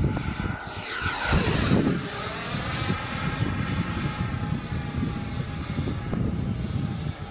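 Freewing T-45 RC jet's 90mm electric ducted fan whining as the model flies past, the pitch sweeping down about a second and a half in, then a steady whine as it flies on.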